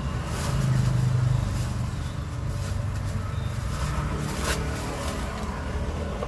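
Road traffic: motor vehicles running past with a steady low engine hum that swells for about a second near the start.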